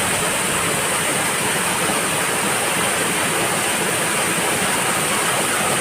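Waterfall: falling water rushing steadily as an even, unbroken hiss.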